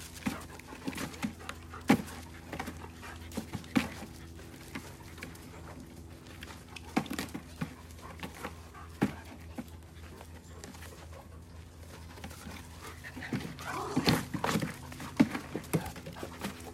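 Dogs panting and whining as they move around, with scattered sharp knocks and scrapes as a dog climbs on and tips over an upturned plastic bucket. The loudest knock comes about two seconds in, and there is a busier stretch of whining and knocking near the end.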